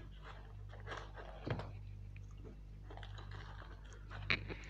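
Fingers tearing a puffed, deep-fried puri and scooping up mutton curry with it: a few faint crackles and handling sounds, the sharpest near the end, over a low steady hum.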